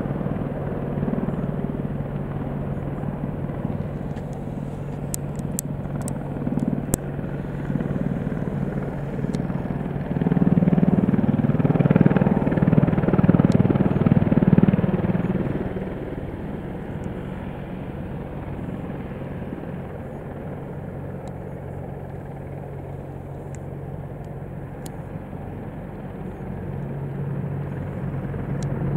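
Boeing AH-64 Apache attack helicopter's rotors and twin turbine engines making a steady low drone that echoes off the surrounding trees. The drone swells louder about ten seconds in, eases off after about fifteen seconds, and builds again near the end.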